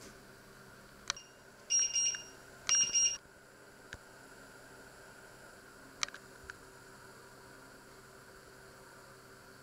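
Two electronic beeps, each about half a second long and a second apart, with a few short sharp clicks before and after them.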